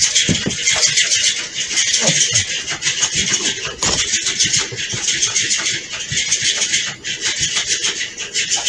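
Motorised flopping-fish cat toy running: a steady mechanical buzzing whir with fast fine ticking as its fabric fish body flips and flaps.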